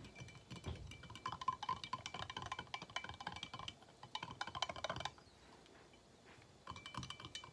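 A spoon stirring instant coffee in a glass mug, clinking rapidly against the glass with a light ringing, the granules being dissolved in hot water. The clinking stops about five seconds in and starts again near the end.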